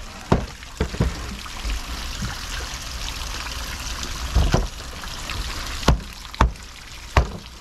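Steady trickle of running water, broken by a handful of sharp, irregular knocks from a cleaver chopping fish on a cutting board.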